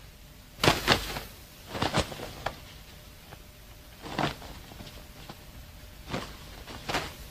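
A series of short, sharp knocks and thuds at uneven intervals, some in close pairs, over a faint steady background.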